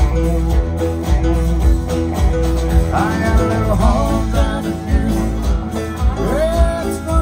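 Live country band playing: strummed acoustic guitars, fiddle and electric guitar over bass and a steady kick-drum beat, with sliding melodic lines from a lead instrument.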